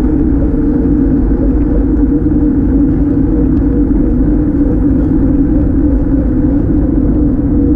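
Wind buffeting and road noise on a GoPro riding on a moving bicycle over asphalt: a steady, loud low rumble with a faint constant hum.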